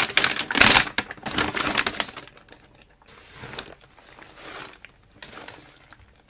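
Silvery plastic packaging bag crinkling loudly as it is pulled open for the first two seconds, then softer rustling in short bursts as the sling bag is drawn out and handled.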